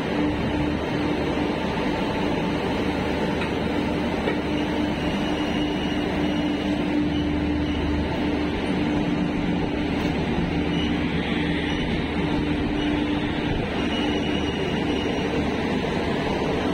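WAG-7 electric locomotives running with a steady whirring hum and a constant low tone through it.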